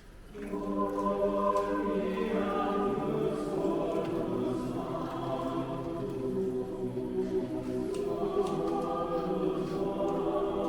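A choir singing in long held notes, coming in about half a second in after a brief silence.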